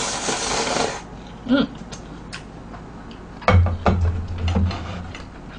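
A long, noisy slurp of instant cup-ramen noodles sucked up from a bowl, ending about a second in. Then chewing with wet mouth clicks, and a louder cluster of clicks over a low hum about three and a half seconds in.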